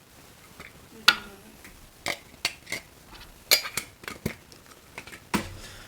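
Handling noise from the opened Funko Soda cans and their packaging: a scattered series of sharp clicks and light clinks, about eight in all, the loudest about a second in.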